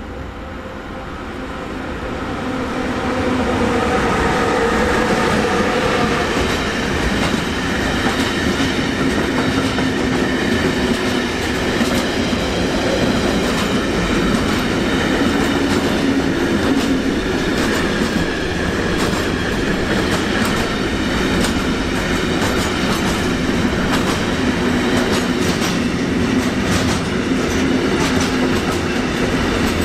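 An electric-hauled intermodal freight train of container wagons passes at speed. The sound swells over the first three seconds, with a whine as the locomotive goes by, then settles into a steady rumble and clickety-clack from the wagons' wheels on the rails.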